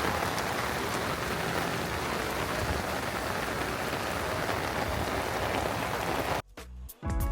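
Torrential rain falling as a steady, even hiss. It cuts off suddenly about six and a half seconds in, where music begins.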